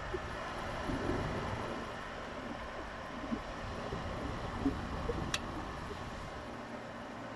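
Kenmore 5250 BTU window air conditioner running steadily on high cool, its blower fan and compressor making an even hum and rush of air. The fan carries a very light, dry noise that the owner first put down to dry fan bearings but doubts new bearings would cure. A faint tick sounds about five seconds in.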